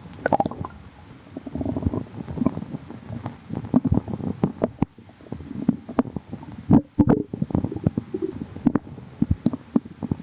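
Human stomach growling and gurgling: irregular low rumbles broken by many quick pops and squelches, with the loudest gurgle about seven seconds in.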